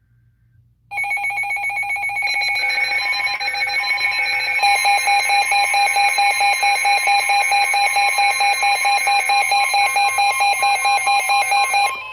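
Weather radio alert alarms: several electronic tones start abruptly about a second in, with stepped beeping tones layered over a steady one. From about four and a half seconds in, the sound pulses about four times a second. They cut off near the end. The alarm signals that a warning has been received.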